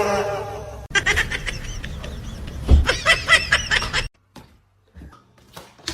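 A person laughing in quick bursts, cut off abruptly about four seconds in, after a short wavering high-pitched call at the start.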